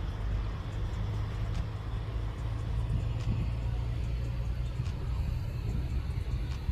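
A swollen, flooded stream rushing steadily, with a deep, unbroken rumble under the rush.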